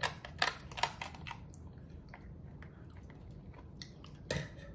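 Chewing of king crab meat close to the microphone. There are a few sharp clicks in the first second, then fainter mouth ticks.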